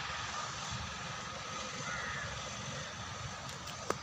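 Crows cawing over a steady outdoor background noise, with one sharp click near the end.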